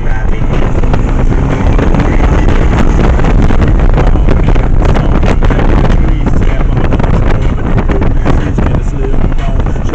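Heavy wind buffeting the microphone of a moving Yamaha 1100 motorcycle, with the ride's road and engine noise underneath.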